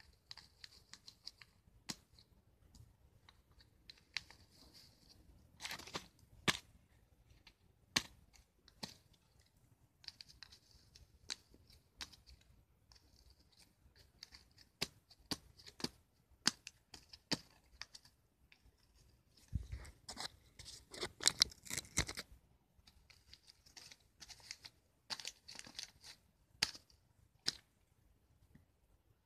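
A homemade paper disc being stabbed and torn with a pen: scattered sharp crackles and short rustles of paper, with a denser flurry of tearing and crinkling about two-thirds of the way through.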